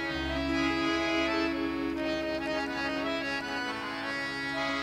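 Harmonium playing a slow instrumental introduction to a ghazal, sustained reedy notes and chords changing every second or so, over a deep steady bass tone.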